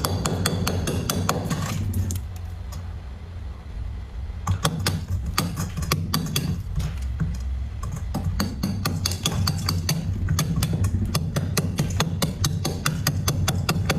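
Thick, crunchy freezer frost being scraped and broken up: a quick run of sharp crisp crunches and clicks, sparser for a couple of seconds before picking up again. A steady low hum runs underneath.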